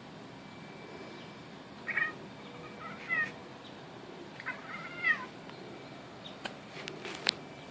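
A domestic cat gives three short meows, spaced about a second apart. Two sharp clicks follow near the end.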